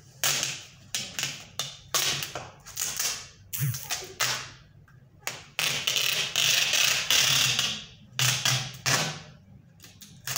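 Packing tape being pulled off the roll and pressed down on a cardboard box: a series of short rasping rips, with a longer pull about six seconds in.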